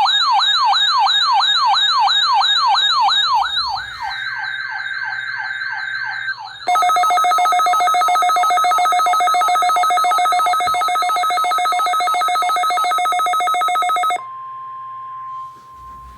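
Weather radio alert receivers going off: a fast repeating warbling siren sweep, then a harsh rapidly pulsing buzzer. The alarms sound over the NOAA Weather Radio SAME data burst of a required weekly test. Near the end they cut off and the broadcast's steady 1050 Hz warning alarm tone is left sounding.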